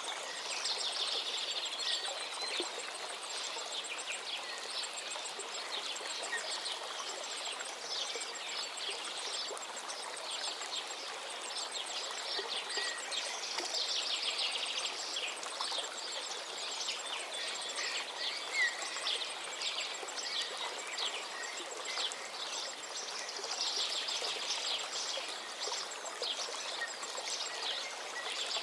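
Stream water running steadily, with several birds singing and chirping over it in bursts. A rapid, very high ticking trill comes and goes through much of it.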